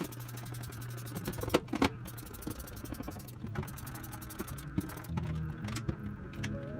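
Quiet background music with steady low notes, with a few sharp clicks and light scrapes over it, the strongest clicks a little over a second and a half in.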